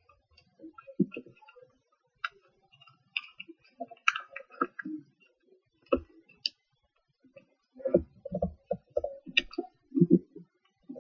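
Paper crinkling and crisp clicks as hands fold and crease a sheet of origami paper, with fingers knocking and pressing it against a wooden tabletop. The knocks come thickest from about eight seconds in.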